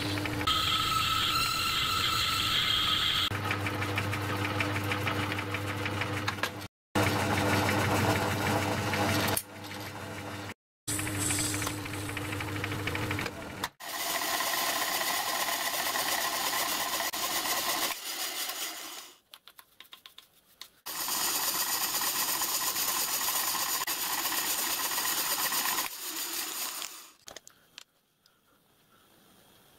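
Myford lathe running with a steady motor hum while a twist drill in the tailstock chuck drills into a brass bush. After a cut, a milling machine's cutter runs over a brass bush clamped in a vise, pausing about 19 s in and stopping about 27 s in.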